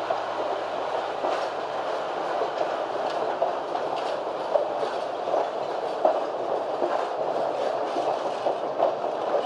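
Passenger train rolling along the track: a steady rumble, with scattered irregular clicks from the wheels.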